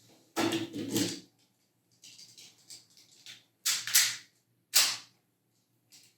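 Hard plastic parts of a DX Chou ToQ-Oh toy robot being handled and clicked into place as an arm is snapped onto a side port. There is a burst of rattling about half a second in, faint ticks after that, then sharp snaps near the middle and again a second later.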